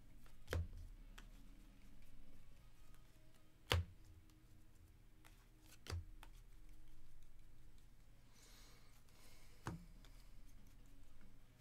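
Paper-stock trading cards being handled and sorted by hand: four short taps as cards or small stacks are set down on a tabletop, with a faint papery sliding as cards are pushed through the hands.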